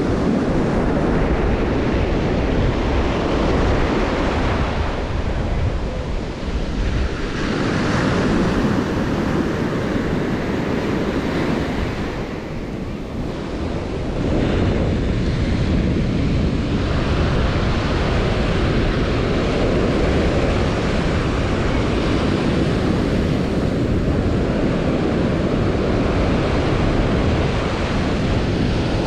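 Ocean surf breaking and washing up a sandy beach, a steady wash of foam that swells and eases as waves come in, with wind rumbling on the microphone.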